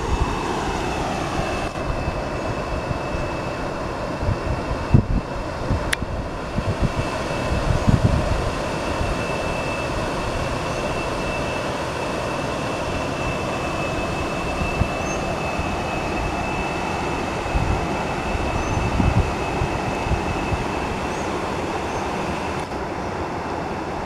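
River water rushing over rock rapids and a small cascade: a steady, loud rushing. Occasional low rumbles come and go through it.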